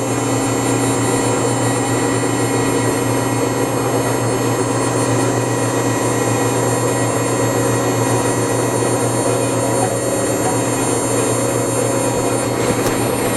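CNC router spindle motor running with a steady high whine and hum while the gantry carries the head slowly across the work at a reduced 20% feed rate.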